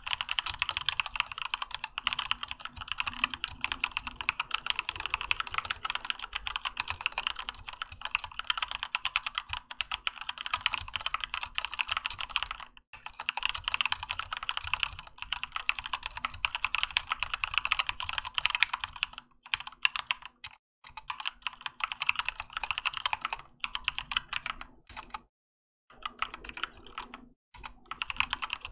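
Fast, continuous typing on a Keychron K2 mechanical keyboard with Gateron Red linear switches and OEM-profile PBT keycaps, a dense run of keystroke clacks broken by a few short pauses.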